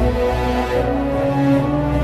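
Background music of long held notes that shift in pitch now and then.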